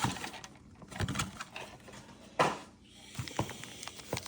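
Pokémon trading cards and booster-pack foil being handled: light rustles and clicks, with a louder crinkle about two and a half seconds in.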